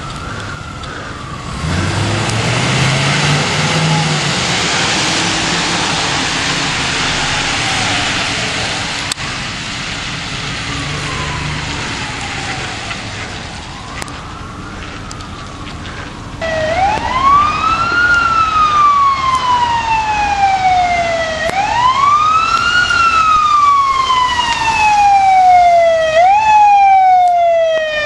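Ambulance driving by on a wet road, its engine note rising under a hiss of tyres, while a siren wails faintly in the distance. About halfway through, a fire engine's siren comes in loud and wailing, each quick rise and slower fall taking about five seconds, with a shorter, quicker cycle near the end.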